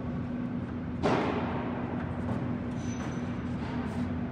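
Martin D-80 all-geared heavy-duty lathe running with a steady hum. About a second in, a sudden rush of noise fades over about a second as the spindle is set running at 112 rpm.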